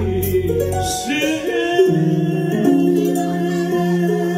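Live band music on keyboard: the deep bass stops about a second in, leaving held keyboard notes that settle into a long sustained chord as the song ends.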